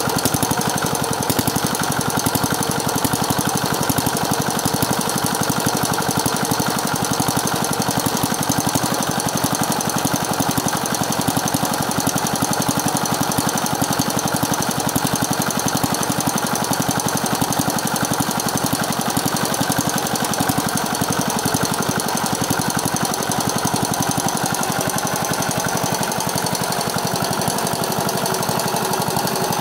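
Z170F single-cylinder air-cooled Chinese diesel engine running steadily with a rapid, even knock of its firing strokes, its fuel-injection plunger and nozzle freshly reset.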